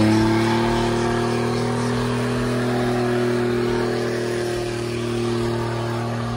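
Muscle car engine held at steady high revs during a burnout, just after revving up, over a haze of tyre and exhaust noise.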